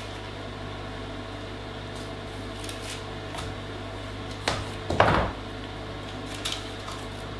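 A steady low hum with faint clicks of a spatula working soft fudge in a paper-lined tray, then about four and a half seconds in, two knocks as the metal fudge tray is lifted and set back down on the worktable, the second the louder.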